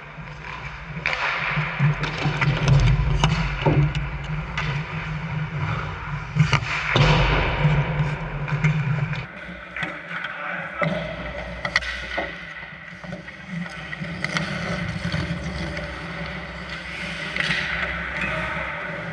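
Ice hockey play: skate blades scraping the ice, with sharp clacks and knocks of sticks and puck and occasional thuds, over a low steady hum that cuts out about nine seconds in.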